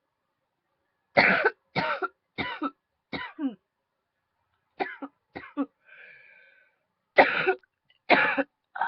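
A woman coughing hard and repeatedly from a tickle in her throat. There is a run of four coughs, each weaker than the one before, then a pause, three smaller coughs and a short, quieter rasping sound, then three more strong coughs near the end.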